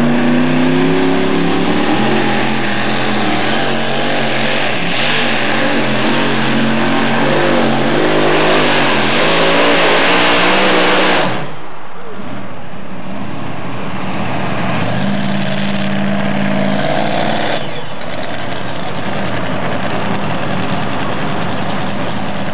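Vehicle engines running and revving loudly, the pitch rising and falling. About 11 seconds in the sound cuts abruptly to a quieter, steadier engine running, with another break near 18 seconds.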